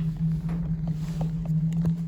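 A 1994 passenger lift travelling down, with a steady low hum from its drive and a few small clicks and knocks from the car. The hum falls away right at the end as the car stops.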